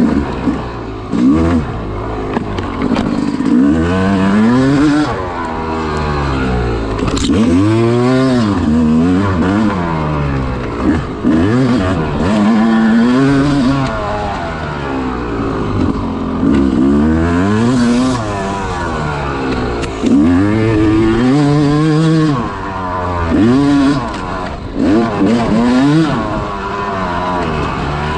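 Yamaha YZ250 two-stroke dirt bike engine being ridden hard, revving up and dropping back over and over as the throttle is worked through tight trail turns; the pitch rises and falls every second or two.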